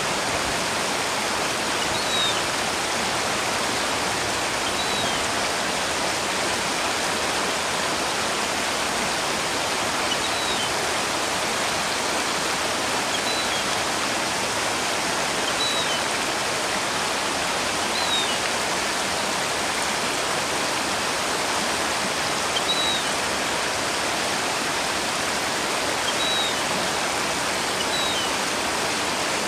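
Shallow river water rushing steadily over stones, with a faint short high chirp every two to three seconds.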